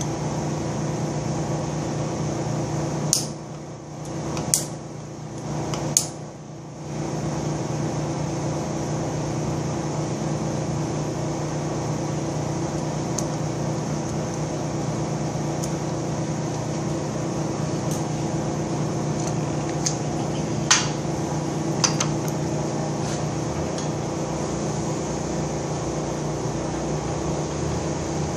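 Steady electric hum of a horizontal boring machine standing idle. It dips briefly twice a few seconds in, and a few sharp metallic clicks come from the boring bar's cutter being adjusted by hand for the next cut.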